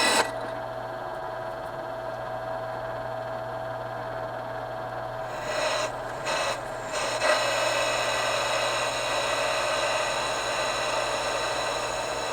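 Drill press running at about 800 RPM, a steady motor hum with a whine over it, with the sound briefly changing around six to seven seconds in.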